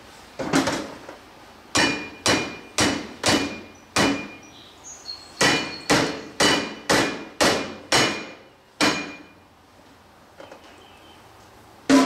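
Hammer blows on metal parts of a John Deere 430 lawn tractor: about a dozen sharp strikes, each with a short metallic ring, roughly two a second in two runs with a brief pause between them.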